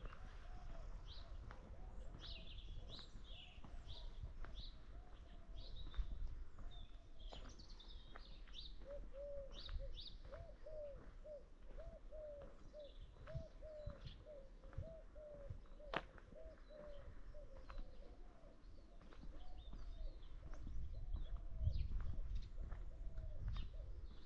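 Birds calling outdoors: a long run of short, quickly repeated low notes, with higher chirps and twitters scattered over it and a low rumble underneath.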